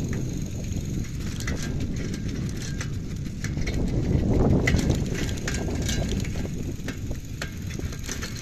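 Mountain bike being ridden on a dirt forest trail: a steady low rumble from the ride, with scattered clicks and rattles from the bike, swelling briefly about four and a half seconds in.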